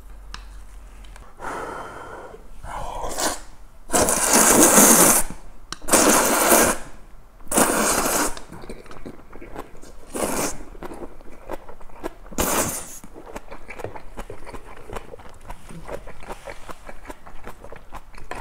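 A person slurping hand-cut kalguksu noodles in several loud rushing pulls, the longest and loudest about four seconds in. After the pulls, from a little past the middle, comes steady wet chewing with fine smacking clicks.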